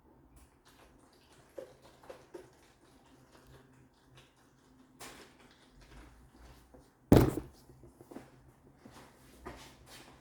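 Microfiber rag wiping down a bumper with isopropyl alcohol: scattered light rubbing and small clicks of handling, with one loud knock about seven seconds in.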